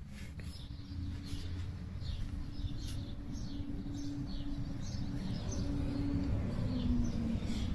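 Birds chirping in short, quick falling notes over a low rumble that grows louder toward the end.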